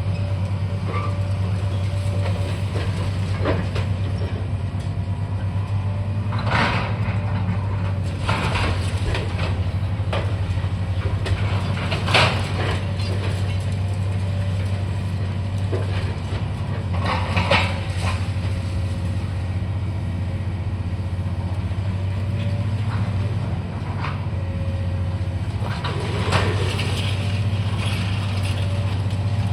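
Heavy demolition machinery running steadily with a low diesel hum, broken every few seconds by sudden crunches and clatters of breaking material and falling debris.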